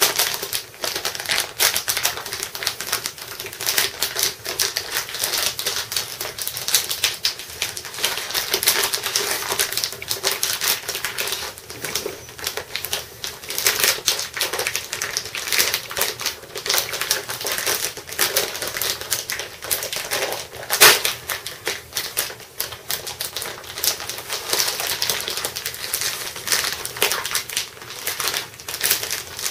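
Clear plastic packaging of an inflatable swim ring being handled and worked at by hand: a dense, continuous run of small clicks and rustles, with one sharper snap about two-thirds of the way through.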